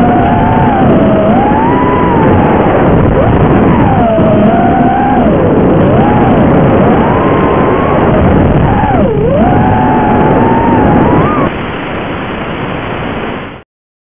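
A 5-inch FPV racing quadcopter's brushless motors and propellers whining, the pitch rising and falling with the throttle. The whine stops about eleven and a half seconds in, leaving a quieter steady hiss that cuts off shortly before the end.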